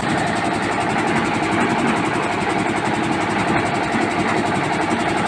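Diesel engine of a concrete mixer with lift running steadily at a constant speed, with a rapid, even firing beat.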